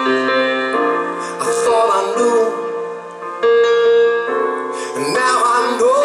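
Live piano playing sustained chords, moving to a new chord every second or two, with a man's voice singing short phrases over it around the middle and again near the end.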